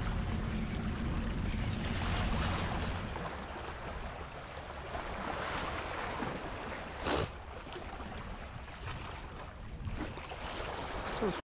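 Wind buffeting the microphone over the steady wash of waves and current against shoreline rocks, heaviest in the first few seconds, with one brief sharp knock about seven seconds in. It cuts off suddenly just before the end.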